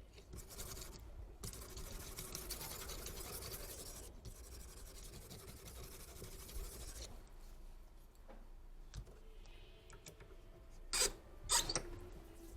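Knife blade drawn along a diamond sharpening stone in a few long rasping strokes, followed near the end by two sharp knocks.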